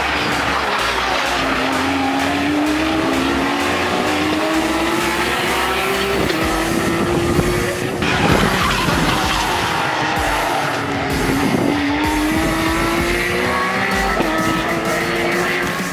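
Race car engines at full throttle on a circuit, their pitch climbing through each gear and dropping at each upshift, with a loud surge about eight seconds in as a car goes by. Electronic music with a steady bass beat plays underneath.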